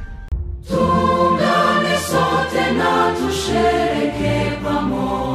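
Choir singing over backing music. The song comes back in strongly after a short dip about half a second in.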